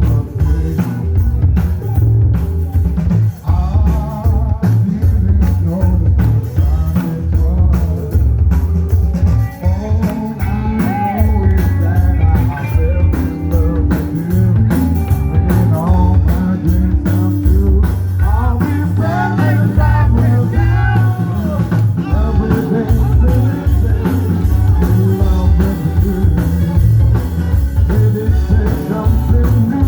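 A rock band playing: loud bass and a steady drum beat, with electric guitar and a singer's voice over them.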